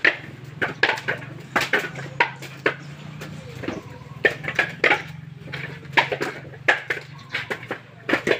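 Coconuts knocking against one another and dropping into woven bamboo baskets as they are picked from a pile by hand: an irregular run of short, dull knocks, with a low steady hum underneath.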